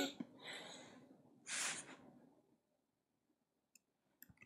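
A single breath out, close to the microphone, about a second and a half in. A few faint clicks follow near the end, otherwise near silence.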